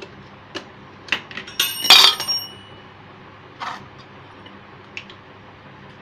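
A few sharp clicks, then a bright metallic clink about two seconds in that rings briefly on several high tones, followed by a duller knock and one last click.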